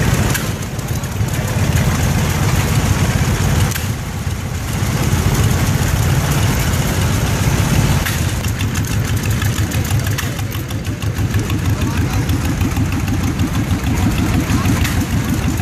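Antique farm tractors driving slowly past one after another, their engines chugging in a steady, even rhythm.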